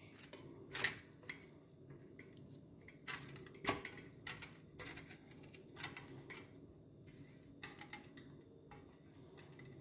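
Faint, scattered clinks and knocks of kitchenware against a glass bowl as grated potato shreds are moved into it, a dozen or so light taps at uneven intervals.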